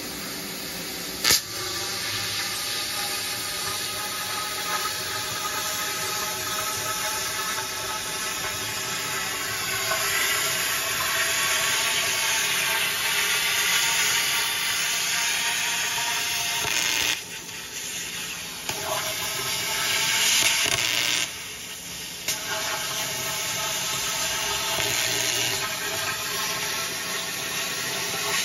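Plasma cutter cutting through the lid of a steel drum: a steady loud hiss of the arc and air jet with a faint whine, starting with a sharp crack about a second in. The cut stops briefly twice, about two-thirds of the way through, and starts again.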